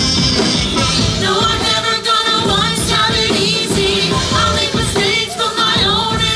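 Live rock band with electric guitar and drums, and several cast members singing a musical-theatre song into microphones.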